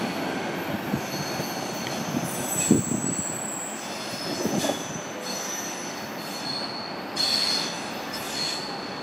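ÖBB double-deck passenger train pulling away on a curving track, its wheels squealing in thin, high tones that come and go over a steady rolling rumble. A few sharp knocks come from the wheels.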